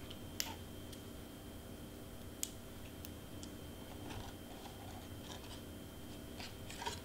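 Light handling of cardstock pieces and mini LED lights: two sharp small clicks about half a second and two and a half seconds in, with a few softer ticks and brief paper rustling.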